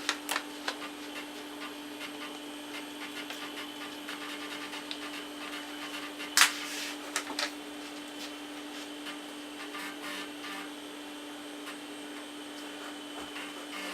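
Floppy disk drive reading the DOS boot disk: irregular clicking and scratchy head-seek noise as it loads, with a sharp loud clack about six and a half seconds in, over the computer's steady hum.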